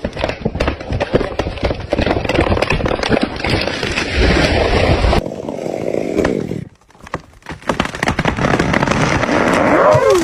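A big felled tree cracking and crashing down, a dense run of snapping and splintering wood and breaking branches. It cuts off suddenly about five seconds in, dies to a short lull, then crashes and crackles again.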